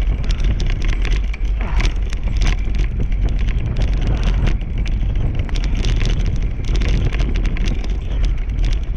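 A dog-drawn dryland rig rolling fast over a bumpy grass track: a steady heavy rumble from the wheels and wind on the microphone, with frequent sharp rattles and knocks as the rig jolts over the ground.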